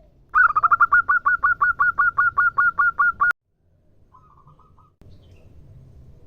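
Female zebra dove (perkutut) calling to a male: a fast run of about seventeen sharp repeated notes, roughly six a second, that cuts off suddenly with a click. About a second later comes a fainter, short run of about five notes.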